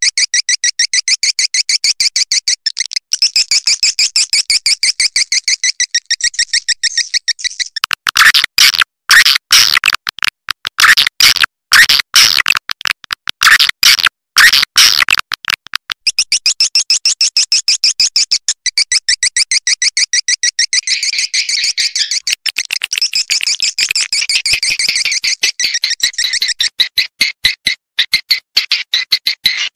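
A swiftlet calling-sound recording of the kind played to lure swiftlets. It is dense trains of rapid, high twittering chirps. From about eight to sixteen seconds in, it changes to louder, sharper clicking chirps in bursts with short gaps, then returns to the high twittering.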